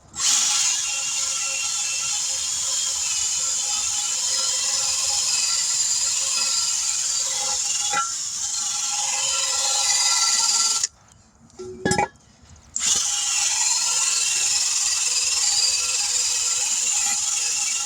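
Power tool cleaning the wheel rims, running steadily, cutting off about eleven seconds in and starting up again a couple of seconds later.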